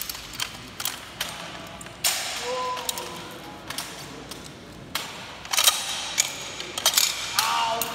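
Metal parts of an M2A1 .50 calibre machine gun clicking, clacking and sliding as it is stripped by hand at speed: a run of irregular sharp metal knocks, with a louder clack about two seconds in and a quick cluster of clicks near the end.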